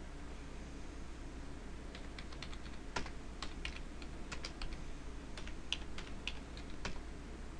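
Typing on a computer keyboard: irregular runs of key clicks starting about two seconds in, over a low steady hum.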